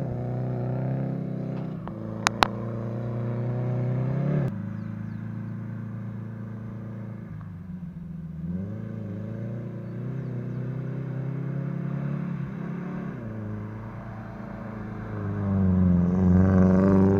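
Car with a GM OHC four-cylinder engine running with a loud exhaust, its speed sagging and rising several times, revved up near the end. There are two sharp clicks about two seconds in.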